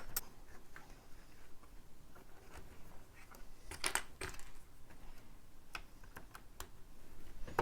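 LEGO bricks being handled and pressed into place: scattered small plastic clicks and taps, a quick cluster of them about four seconds in and a few single clicks after.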